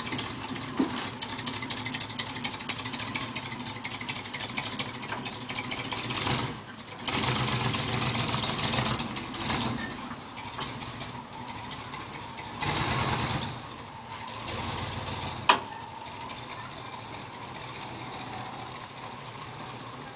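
1965 Mercury pickup's 352 V8 engine running, rising and falling as it is revved several times, with one sharp click about fifteen seconds in.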